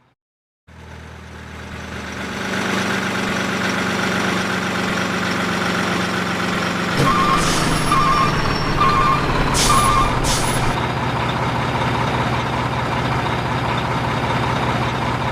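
A large engine running steadily after fading in, its pitch shifting about halfway through. Four short beeps about a second apart sound in the middle, along with a few short hisses.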